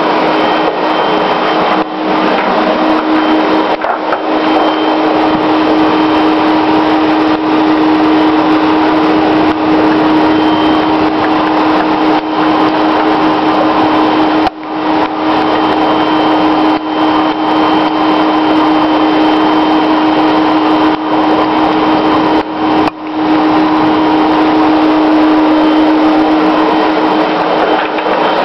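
Vacuum cleaner running steadily at full power, blowing air through a homemade clear plastic tunnel to drive ping pong balls along it, with a constant hum under the rushing air. The sound dips briefly about three times.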